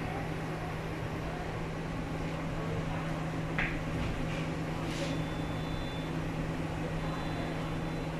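Steady interior hum of an MTR East Rail Line R-Train carriage standing at a platform: the air-conditioning and onboard equipment running, with a constant low drone. A few faint clicks and a thin high tone come and go in the second half.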